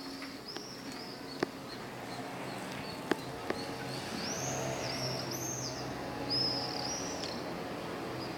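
Small birds chirping: a string of short, arched high notes, coming thicker in the second half, over a low steady hum with a few sharp clicks.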